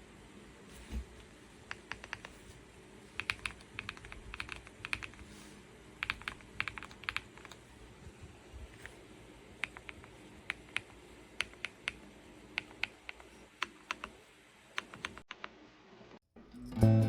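Typing on an Ajazz AK820 Pro gasket-mounted mechanical keyboard with Ajazz Gift switches: irregular runs of key clicks and clacks, in bursts with short pauses. The typing stops near the end, and loud music comes in just before the close.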